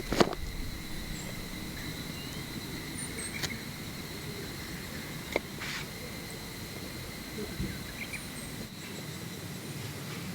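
Steady, high insect trilling, with a few light knocks and clicks.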